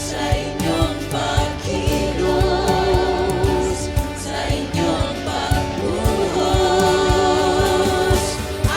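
Worship band playing a praise song, with singers' voices held over a steady drum beat.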